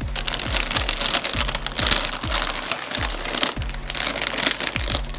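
A potato chip bag crinkling as it is handled, over electronic background music with a steady bass beat.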